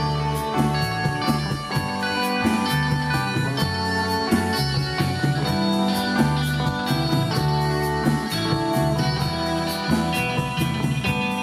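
Live band playing with amplified electric guitars over bass guitar and a drum kit keeping a steady cymbal beat.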